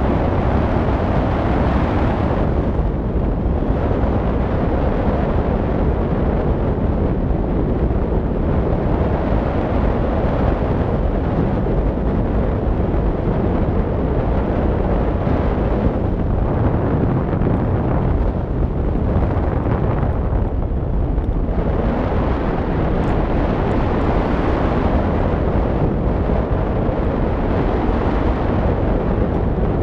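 Steady loud rush of airflow buffeting a wing-mounted camera's microphone on a hang glider in flight, a deep rumble with a hiss that swells and eases every few seconds.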